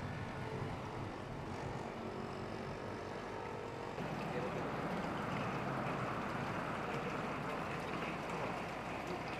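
Outdoor street ambience with steady road and traffic noise. At a cut about four seconds in it changes to an even hiss with faint voices.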